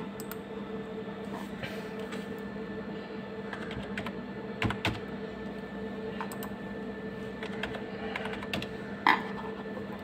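Scattered clicks of computer keys and mouse buttons, a few at a time with gaps between, the clearest a pair just before and after five seconds in and one about nine seconds in, over a steady low hum.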